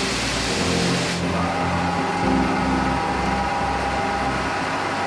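CNC machining centre milling an engine block under flood coolant: a loud spray hiss that stops about a second in, then a steady machine whine over a low hum.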